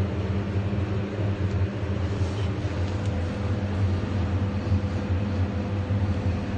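A vehicle engine running steadily, a low even drone.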